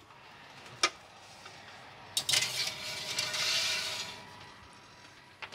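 An oven door clicks open about a second in, then a metal roasting tray scrapes and rubs across the oven's wire rack as it is slid in, for about two seconds, with another short click near the end.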